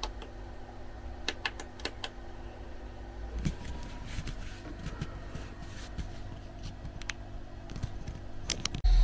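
Irregular clicks of typing on a computer keyboard, a few at a time, over a steady low hum.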